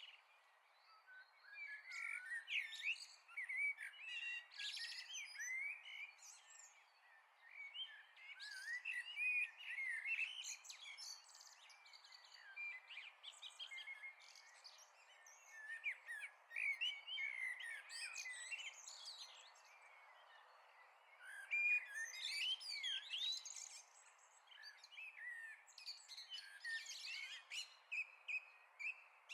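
Several songbirds chirping and singing at once, a busy chorus of short quick calls and warbles, with a quieter spell about two-thirds of the way through.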